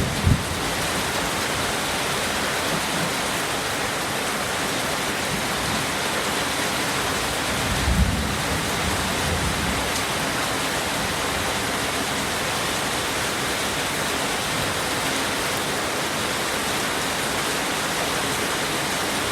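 Heavy rain falling steadily, a dense even hiss. A brief low rumble comes about eight seconds in.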